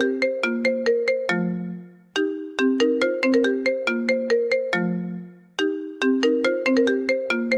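iPhone 7 Plus original ringtone playing: a quick run of bright struck notes that ends on a held low note. The phrase repeats about every three and a half seconds.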